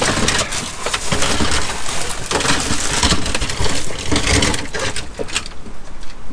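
Loose plastic toy vehicles and figures clattering and rattling against each other in a cardboard box as a hand rummages through them, easing off near the end.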